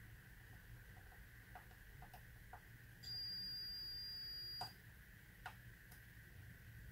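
Digital multimeter's continuity beeper in diode-test mode giving one steady high beep of about a second and a half, a sign that the probes are across a near-zero reading (the display shows 015). A few faint clicks are heard around it.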